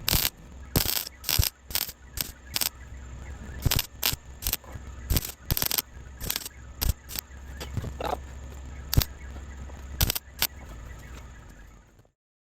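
MIG welder laying short tack welds on a sheet-metal patch: about twenty brief crackling bursts at uneven spacing over a steady low hum. The sound cuts off just before the end.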